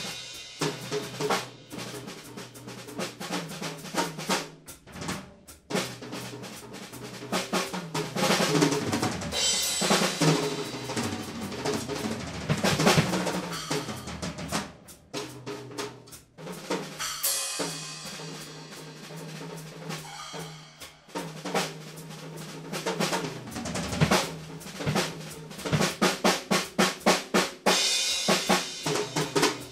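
Acoustic drum kit played freely with sticks: snare, toms, bass drum and cymbals in an improvised solo. The playing swells and falls back in turns, ending in a fast, dense run of strokes.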